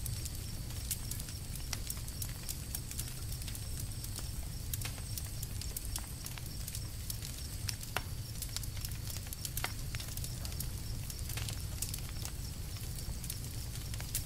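Campfire crackling: irregular snaps and pops from the burning wood over a steady low rumble, with a few sharper pops past the middle.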